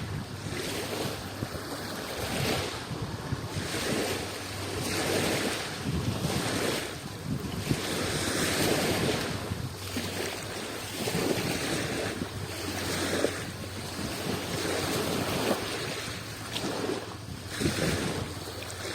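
Adriatic Sea waves washing in, a steady hiss of moving water that swells and falls back every couple of seconds.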